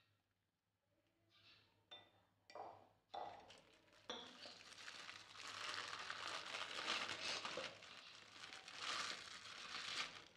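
Thin plastic bag filled with jalebi batter crinkling as it is handled and gathered at the top. A few short rustles come first, then continuous crinkling from about four seconds in.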